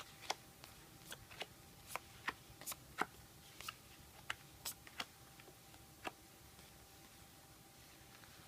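Yu-Gi-Oh trading cards being handled and flipped through: a run of irregular light clicks and snaps from the card edges, stopping about six seconds in.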